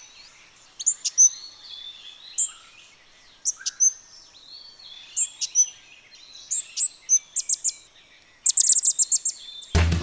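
Sri Lanka hanging parrot calling: short, sharp, high-pitched chirps at irregular intervals, with fainter, lower bird notes behind them. Near the end comes a quick run of rapid chirps.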